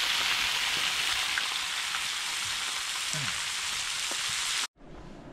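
Flounder frying in a cast iron pan on a camp stove: a steady, loud sizzle that cuts off abruptly near the end, leaving a much quieter low background.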